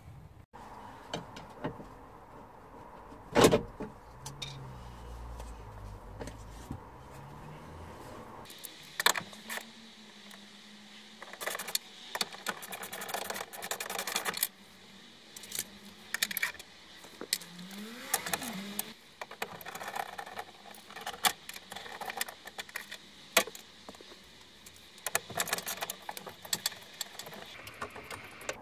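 Irregular metallic clinks, rattles and knocks of hands and tools working inside an Audi TT's bare steel door cavity on the window regulator, with one loud knock a few seconds in.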